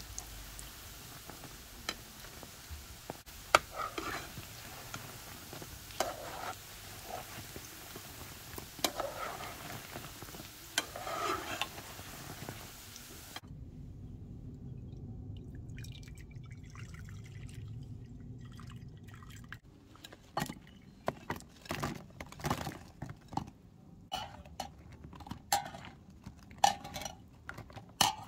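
Dough balls sizzling steadily in hot vegetable oil, with a metal skimmer clicking against the frying pan as they are turned. About halfway through the sizzling stops at a cut, and from about two-thirds in a wire skimmer clinks and scrapes repeatedly against a ceramic bowl.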